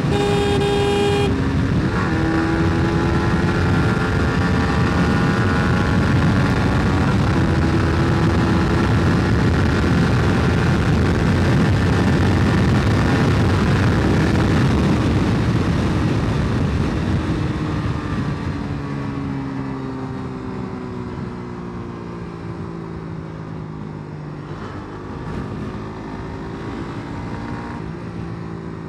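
Suzuki GSX-R motorcycle ridden at speed on a highway, its engine note rising and falling under heavy wind rush, while a horn sounds for about the first second. After about 17 seconds the rush dies down as the bike slows, and the engine settles to a lower, steady note.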